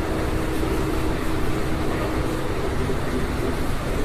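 Steady rumble and rail noise of a moving Amtrak passenger car, heard from inside the car, with a faint steady hum that drops away about two and a half seconds in.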